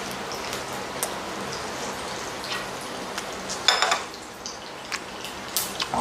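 Meat sizzling in a pan, a steady hiss, with light clicks of tongs and utensils and one louder clatter a little past halfway.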